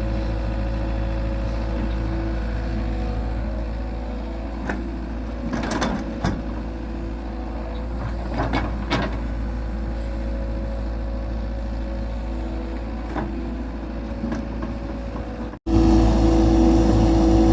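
Excavator's diesel engine running steadily, with a few knocks and clanks about five and nine seconds in as the machine works.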